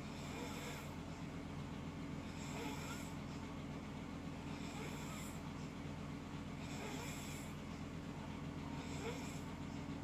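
A sleeping person snoring, one breath about every two and a quarter seconds, five breaths in all, over a steady low hum.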